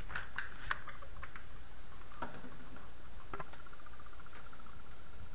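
Light clicks and taps of fingers handling a replacement NTC thermistor and pushing its leads through the holes of a circuit board: several in the first second, a few more later. A faint buzz joins in over the last two seconds.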